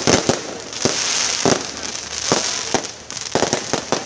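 Fireworks going off: about a dozen sharp bangs and pops at irregular spacing, over a steady high hiss.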